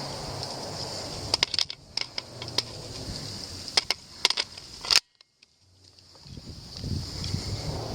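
Airsoft gun shooting at targets: about eight sharp cracks at irregular spacing over some three and a half seconds, with a steady high-pitched background drone. The sound cuts out abruptly about five seconds in and slowly fades back up.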